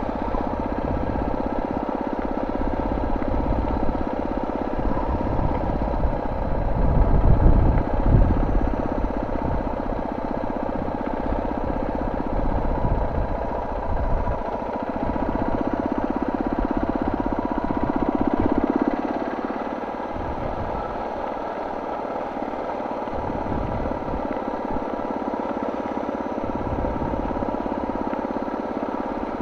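Suzuki DR650's single-cylinder four-stroke engine running steadily as the motorcycle rides over hard beach sand, with gusty wind rumble on the microphone. The engine grows louder for a few seconds past the middle, then eases off.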